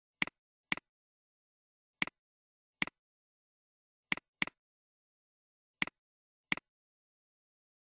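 Computer mouse button clicks, eight in all, singly and in quick pairs, each a sharp click with a softer release right after, with silence in between.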